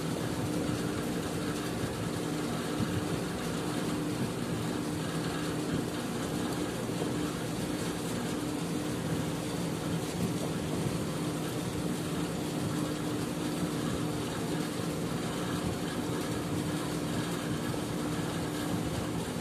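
Steady hum and whir of a running motor, with one constant low tone under an even hiss.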